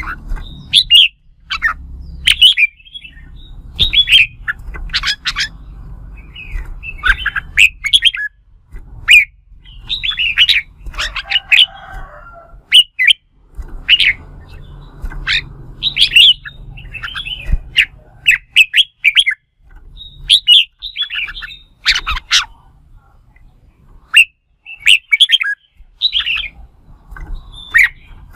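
Red-whiskered bulbuls singing short, loud, chattering whistled phrases one after another, every second or two: the agitated fighting song of males challenging rivals.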